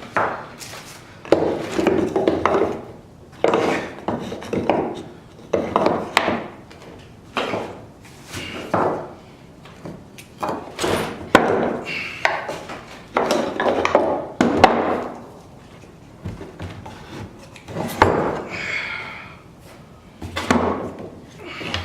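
A spare planer cutter head and its blades being handled and packed back into their box: irregular thunks and sharp knocks with scraping handling noise in between.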